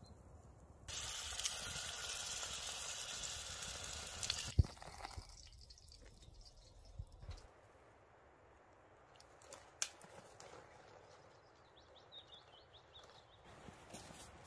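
A loud, even hiss for about three and a half seconds that cuts off sharply. Then quiet outdoor sound with scattered rustles and steps through dry grass, ending in one heavy footfall.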